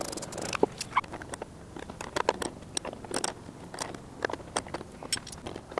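Irregular small clicks, crackles and scrapes of a braided stainless clutch line and its fitting being handled and fitted at the clutch master cylinder.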